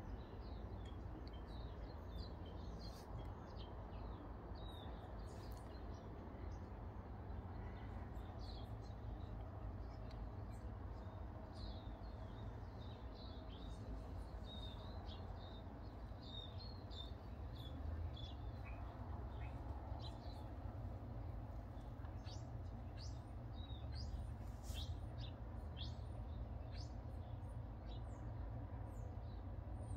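Songbirds chirping on and off in short, high calls, busier in the second half, over a steady low background rumble.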